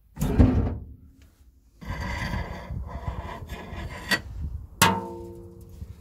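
Metal parts and tools clattering and scraping as a gear lever assembly is worked on. A loud knock comes just after the start, and a sharp clank that rings briefly comes near the end.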